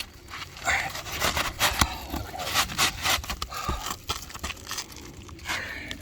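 Gritty asphalt roof shingles scraping and rustling against each other as a new shingle is worked into place under the course above, with irregular scrapes and small clicks.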